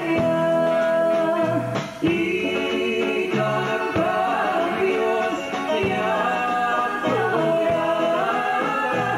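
Live singing with band accompaniment: a man and a woman singing into hand microphones, holding long notes.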